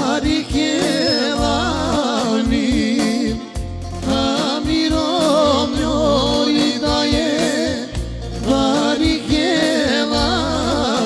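Live Roma band music: a male voice sings a wavering, ornamented melody over sustained bass notes from a Korg keyboard, with darbukas and a tambourine keeping the rhythm.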